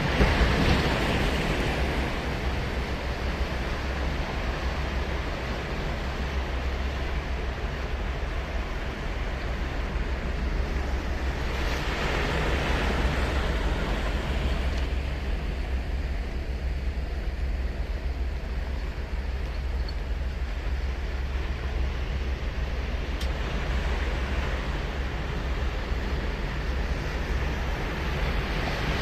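Ocean surf breaking and washing up a beach, with a wave crashing louder about a second in, another around twelve seconds in, and a third at the end, over a steady deep rumble of surf.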